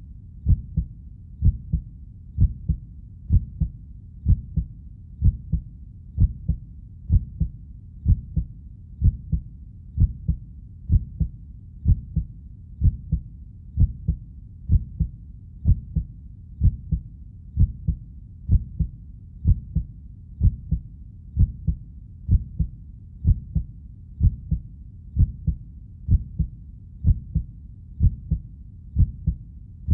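Heartbeat sound effect: a steady rhythm of paired low thumps, the lub-dub of each beat, about one beat a second, over a faint steady hiss.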